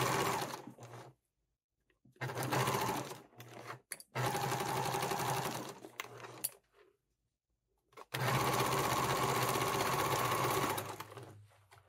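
Domestic electric sewing machine stitching in four short runs with brief stops between them. The last and longest run starts about eight seconds in.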